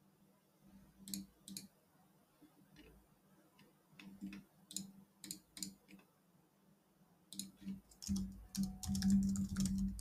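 Computer mouse clicks, single and spaced out, then a quick run of keyboard typing near the end.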